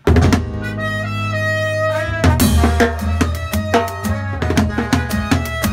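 Salsa with horns and timbales played with sticks: a held horn chord opens, and about two seconds in the rhythm section comes in with sharp, repeated timbale strikes over bass.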